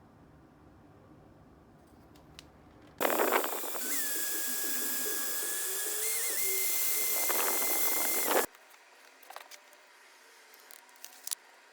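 A steady hiss with a thin whistle through it, starting suddenly about three seconds in and cutting off about five seconds later, followed by a few faint clicks.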